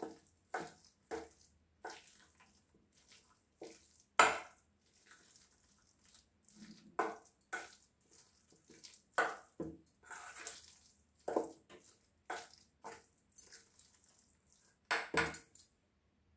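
A spoon clinking and scraping against a stainless-steel bowl as it stirs a thick mashed-corn filling, in irregular strokes about once a second.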